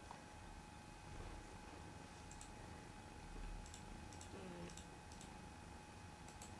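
Near silence: quiet room tone with a faint steady whine and a few faint, scattered clicks.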